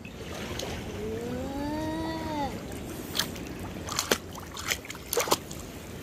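Shallow seawater lapping and splashing as small children slap at it with their hands, with several short sharp splashes in the second half. About a second in, a young child lets out one long rising-and-falling vocal sound.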